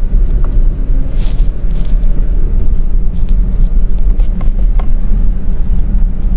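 Inside the cabin of a Porsche Cayman on the move: a steady low rumble from the engine and tyres, with a couple of light ticks about four and a half seconds in.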